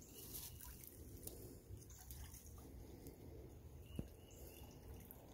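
Near silence: faint low outdoor background with a single short tap about four seconds in.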